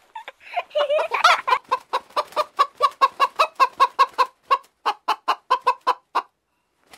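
A hen clucking: a rapid, even run of short clucks, about four or five a second, that stops abruptly about a second before the end.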